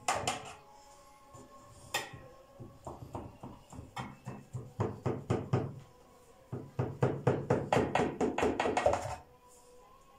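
Knife cutting down through layers of raw phyllo (goullash) in a metal baking tray, the blade knocking against the tray bottom. The knocks come sparsely at first, then in quick runs of about four a second, with a short pause before the last run, and stop shortly before the end.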